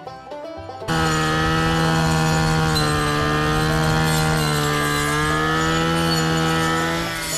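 A moment of plucked-string background music, then about a second in a brush cutter's small engine cuts in, running steadily at high revs as its tip-saw blade cuts through tall grass. The engine note sags slightly near the end.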